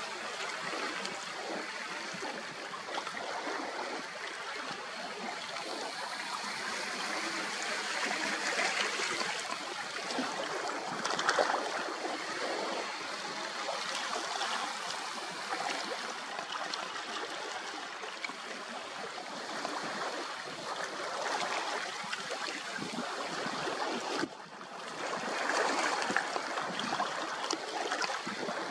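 Small waves lapping and trickling among shoreline rocks, a steady irregular wash of water.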